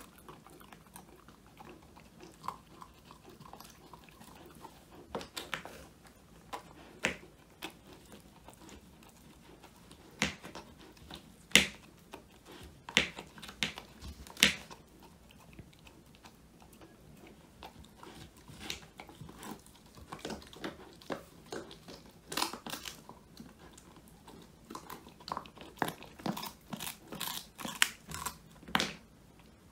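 An Old English Sheepdog chewing a homemade whole-quail treat: irregular crisp crunches as the bones break, with a quieter stretch midway and a quick run of crunches near the end.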